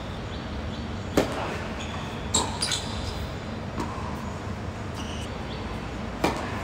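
Tennis ball impacts on a hard court: a sharp racket-on-ball pop about a second in, two more quick hits or bounces around two and a half seconds, and a serve struck near the end.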